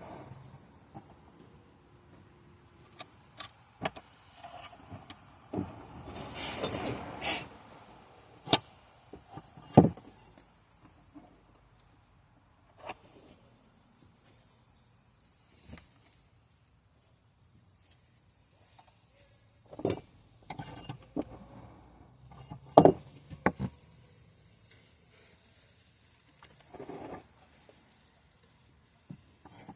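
Insects trilling in a steady, high, finely pulsing chorus, with a few sharp clicks and knocks from handling the saw and file and one short rasping burst about six seconds in.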